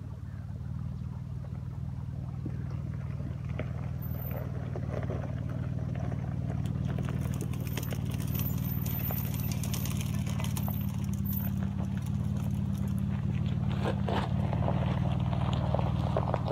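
Jeep Wrangler engine running at low speed as the vehicle drives closer, growing steadily louder, with tyres crackling over a rocky dirt track from about halfway.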